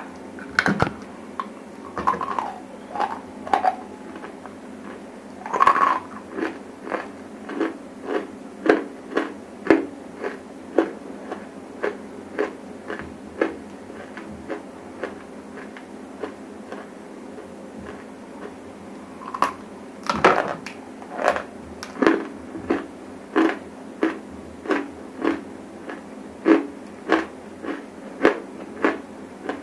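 Close-miked chewing of dry clay lumps: crisp crunches, about one to two a second, thin out in the middle and then come regularly again near the end.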